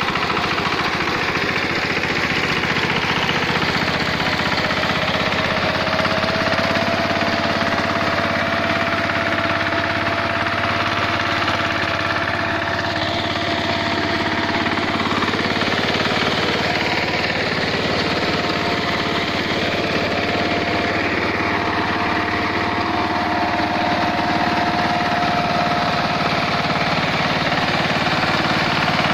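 VST Shakti 130 DI power tiller's single-cylinder diesel engine running steadily with a diesel clatter while the machine tills between sugarcane rows. A thin whine rises over the first few seconds and then holds steady.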